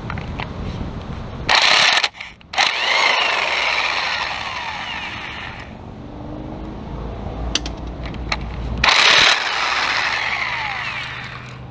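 Impact wrench hammering the 13 mm 12-point connecting-rod cap nuts loose on a 3.1L V6, twice. Each time a short, loud burst of impacts is followed by a few seconds of the tool whirring on and winding down in pitch.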